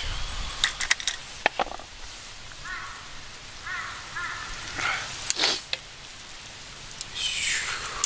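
Cookware clinking and scraping as meat sauce is spooned and poured from a small metal pan onto spaghetti in a wooden bowl. There are a few sharp clicks early, scraping bursts about five seconds in and again near the end, and a few short repeated calls in the background.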